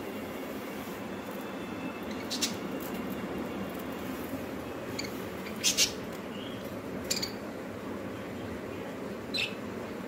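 Caged budgerigars giving short, sharp, high chirps, about five scattered over several seconds, the loudest a quick double chirp about halfway through, over a steady low background hum.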